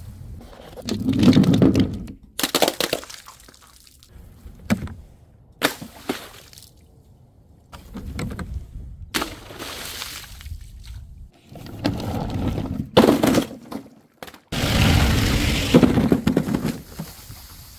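Glass bottles and jars breaking: a series of separate crashes of shattering glass, the longest near the end.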